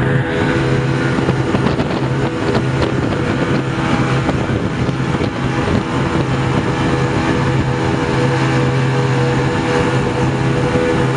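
Motorboat engine running steadily under way, a constant drone with a fixed pitch, with wind noise on the microphone.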